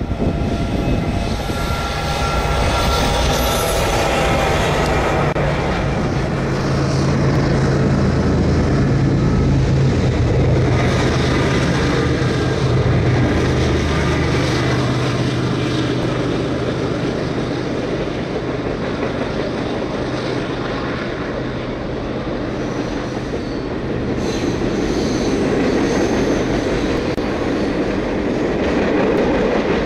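Norfolk Southern diesel freight locomotives pass close by with a steady engine drone. Then the empty trash train's container cars roll by with wheel clatter and a few faint, high wheel squeals near the end.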